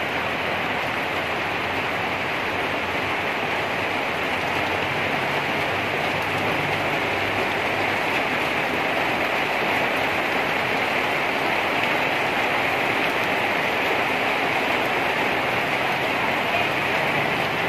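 Heavy rain pouring down, a steady, unbroken hiss of water splashing on wet pavement and the shelter roof overhead.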